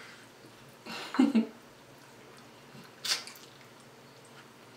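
Mouth sounds of a person biting and chewing a baked chicken wing: a short muffled sound about a second in and a sharper wet smack about three seconds in.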